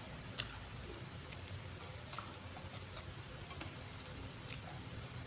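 Eating close to the microphone: soft chewing of pecel sayur with scattered small clicks and mouth sounds.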